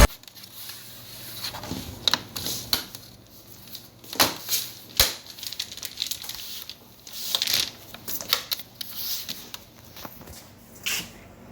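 Irregular sharp clicks and taps with scraping and rustling between them: hand-handling of computer parts and tools during work on an all-in-one PC. The sharpest click comes about five seconds in.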